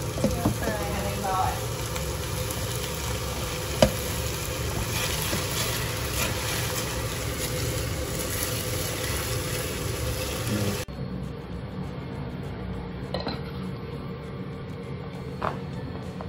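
Sweet and sour pork with peppers, onion and pineapple sizzling in a frying pan as a silicone spatula stirs it. About eleven seconds in, the sizzle cuts off and a quieter stretch follows with a couple of light clicks.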